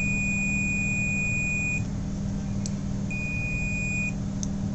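Continuity buzzer of a cheap Silverline digital multimeter sounding a steady high beep as its test leads make contact: one long beep ending about two seconds in, then a second shorter beep about a second later. The beep signals a closed circuit, the meter reading a few ohms.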